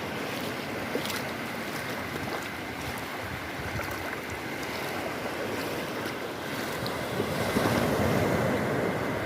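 Ocean surf washing onto a beach: a steady rush of waves that swells louder near the end as a wave breaks.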